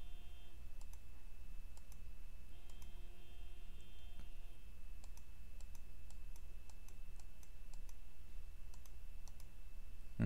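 Computer mouse clicking repeatedly at an irregular pace, a dozen or more short clicks over a steady low hum, ending in a single louder thump.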